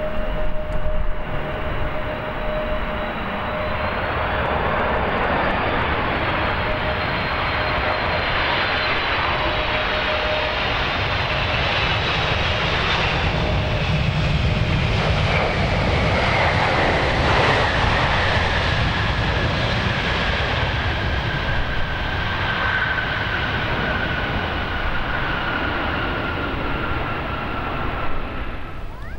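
Boeing 767-300ER jet airliner passing on its landing approach: a steady jet roar with an engine whine that falls steadily in pitch as it goes by, loudest a little past the middle, with low wind rumble on the microphone.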